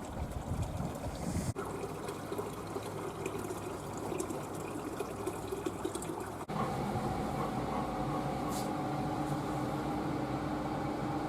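Water running in a dog-grooming bath. About six seconds in, the sound cuts to a steady hum.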